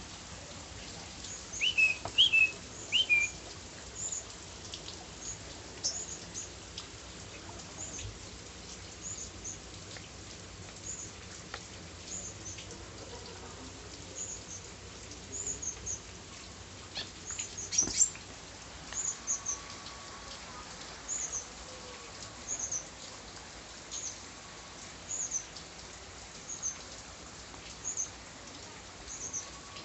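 A small bird chirping in the rain: short, very high chirps about once a second over a steady hiss of rain, with a few louder, lower calls a couple of seconds in.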